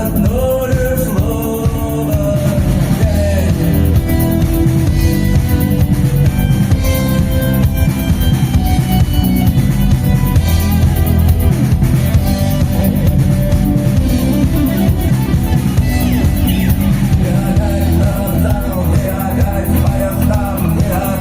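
Rock band playing live with drum kit, guitar and bass, a singer's voice coming in at the start and again near the end.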